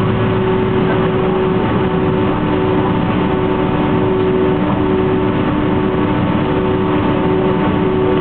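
Boeing 767-300's jet engines and cabin noise heard from inside the cabin as the airliner taxis: a steady, even hum with a few held tones running through it.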